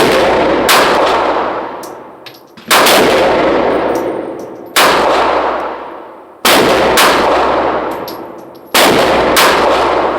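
Gunshots from a 7.62 Draco AK pistol, eight shots fired at an irregular pace, some in quick pairs about half a second apart, each loud report ringing out for about two seconds.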